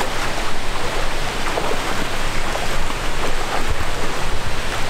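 Steady rush of flowing river water mixed with wind on the microphone.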